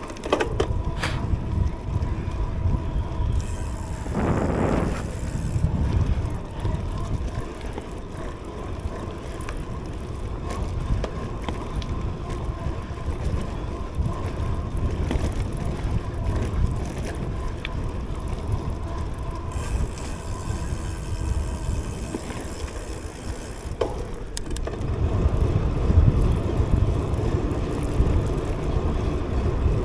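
A Cube Cross Race Pro gravel bike rolling along paved paths: steady tyre rumble with scattered rattles and clicks from the bike, louder over the last few seconds.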